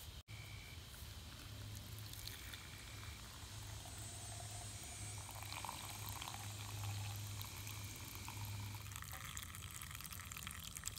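Faint trickle of brewed coffee running through a cotton cloth pour-over filter into a mug in thin streams.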